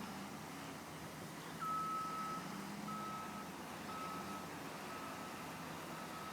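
A vehicle's backup alarm beeping, a single high tone repeating about once a second, starting a little over a second in.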